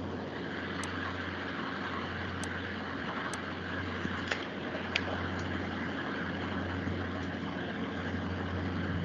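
Steady background noise with a constant low hum, picked up by an open microphone. A few faint, sharp clicks sound between about one and five seconds in.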